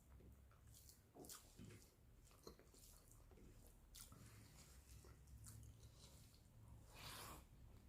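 Faint close-miked chewing of rice and egg curry: soft wet mouth clicks here and there, a little louder about seven seconds in.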